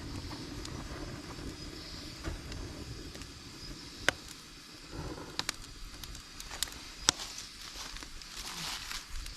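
Campfire burning with a low crackle and a faint hiss, broken by about five sharp pops in the second half.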